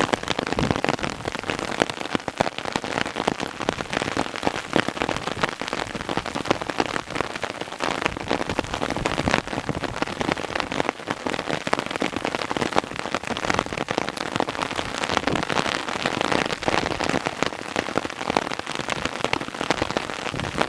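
Hailstorm: a dense, steady patter of small hailstones pelting the ground, many fine ticks overlapping without a break.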